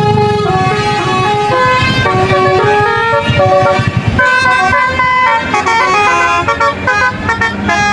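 Indonesian bus 'telolet' musical horn playing a quick tune of short, stepping multi-tone notes, over a low engine rumble.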